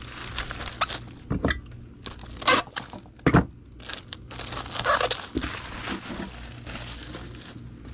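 Bubble wrap crinkling and rustling as a small vinyl figure is wrapped in it, with several louder sharp crackles and knocks.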